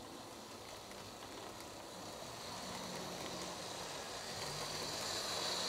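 HO-scale model electric train running on track: a steady electric-motor whine with wheel rumble, gradually getting louder as it approaches.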